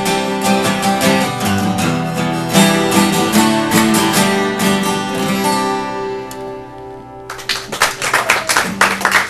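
Acoustic guitar strumming the closing bars of a song, the final chord ringing out and fading away. About seven seconds in, clapping suddenly starts.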